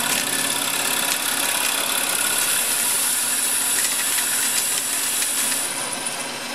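Metal lathe running with a cutting tool turning a cast-aluminium slug: a steady motor hum under a high hiss from the cut, with light ticks of chips. The high cutting hiss fades out shortly before the end as the cut finishes.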